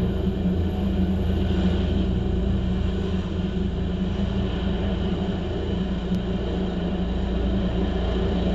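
Rescue helicopter running on a rooftop helipad, its turbine engines and turning rotors giving a steady low rumble and hum, heard through a window.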